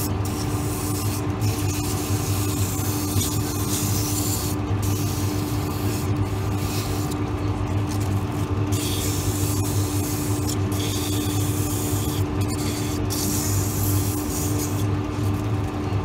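Wood lathe motor humming steadily while sandpaper is pressed against a spinning wooden drawer knob. The sanding hiss breaks off and returns many times as the paper is lifted and pressed again.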